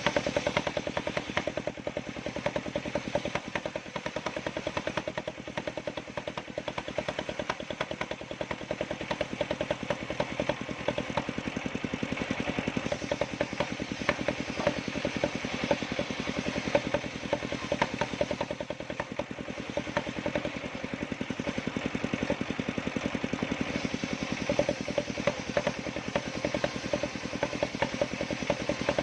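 Engine of a homemade circular sawmill running steadily at an even speed, with a fast, regular firing beat.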